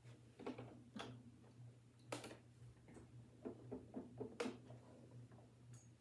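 Domestic sewing machine basting a seam slowly, a soft steady ticking as the needle cycles. Fabric is rustled and slid by hand under the presser foot, with a few sharper clicks.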